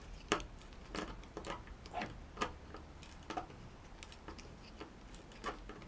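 A screw being turned into wood by hand with a multi tool's bit driver: a string of irregular clicks, roughly two a second, as the tool and bit are twisted and reset between turns.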